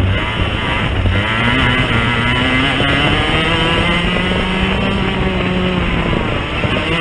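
Racing kart engine at full throttle, heard onboard: its note climbs for about two seconds as the kart accelerates, then holds high and steady, with a brief dip near the end.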